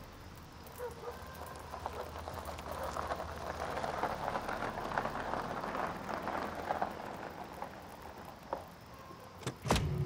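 Fire crackling and popping, a dense patter of small snaps that grows busier in the middle and then thins out. Near the end comes one sharp, loud knock.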